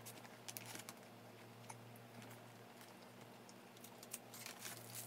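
Near silence: room tone with a low steady hum and faint, scattered small clicks.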